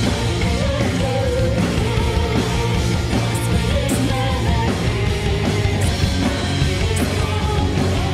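Live heavy metal band playing: distorted electric guitar, bass guitar and drums with several cymbal crashes, and a woman singing over them.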